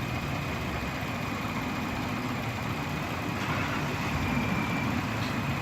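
Minivan engine idling steadily while its alternator is under a charging test, with a thin steady high tone above the engine.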